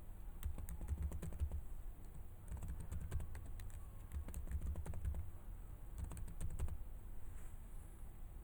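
Computer keyboard typing in about four short bursts with pauses between them, as a new user's name and details are keyed in.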